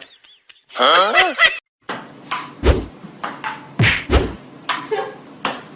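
A short, wavering, high-pitched cry about a second in, followed by a run of irregular knocks and thuds, a few of them deep and heavy.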